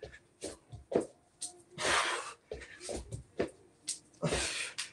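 Heavy breathing from hard exercise: two long, forceful exhalations, about two seconds in and near the end. Between them come short thuds of hands and feet landing on a floor mat during burpees.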